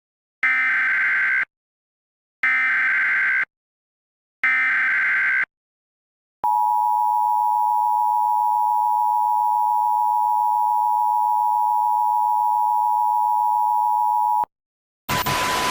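Emergency Alert System tones: three identical one-second screeching SAME data header bursts about a second apart, then the steady two-tone EAS attention signal for about eight seconds, cutting off abruptly. A loud burst of noise starts near the end.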